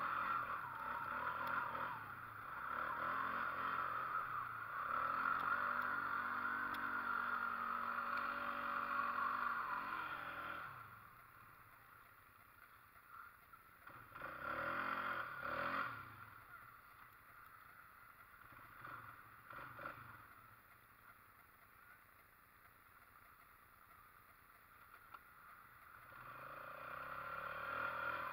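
ATV engine running and revving for about the first ten seconds, then dropping much quieter for about fifteen seconds, and picking up again near the end.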